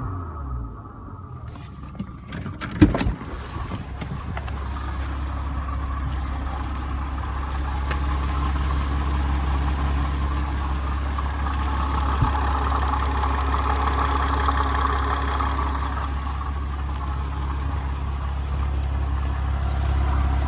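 Porsche Cayman engine winding down, then a sharp crank and catch about three seconds in, after which it idles with a steady low drone. The owner is chasing a tapping or knocking sound from this engine.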